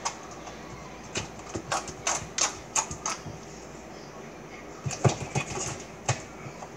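Purple slime being kneaded and pulled by hand, giving irregular bursts of small squelching clicks.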